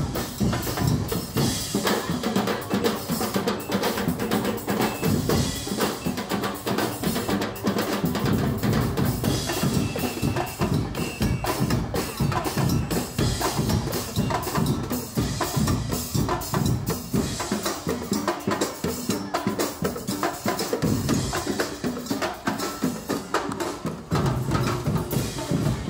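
Parade percussion band playing a steady, driving beat on bass and snare drums.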